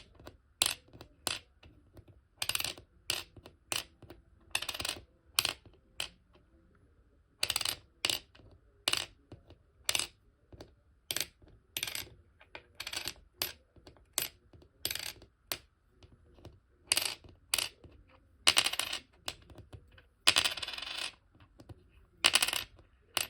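Pennies dropped again and again, each landing as a sharp metallic clink with a short ring, about thirty drops in all. Two of them ring on longer, around 18 s and 20 s in, like coins spinning or bouncing. This is a sound test of a 1914 and a 1972 penny, listening for the brighter ping of brass against the duller sound of copper.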